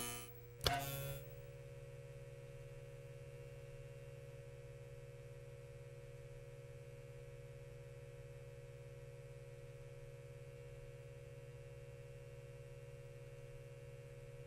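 A single sharp click, then a steady electrical neon-sign buzz: a low hum with a higher tone above it, unchanging.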